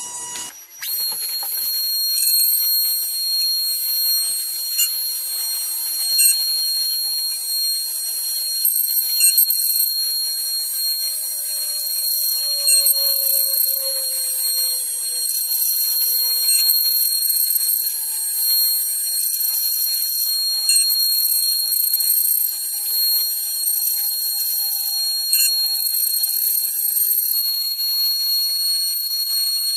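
High-speed CNC router spindle whining at a steady high pitch while cutting, starting up about a second in. Fainter lower tones slide downward in pitch partway through as the machine moves.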